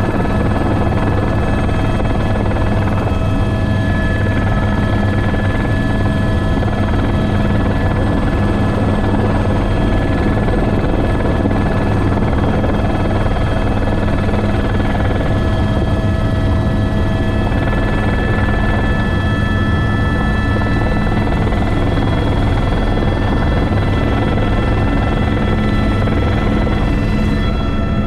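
Airbus H125 helicopter heard from inside its cockpit in flight: the steady whine of the turbine with several high constant tones over the dense low beat of the main rotor.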